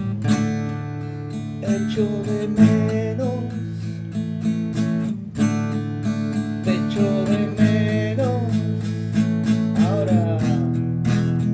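Music: strummed acoustic guitar chords over sustained low notes, with a melody line that bends and glides in pitch.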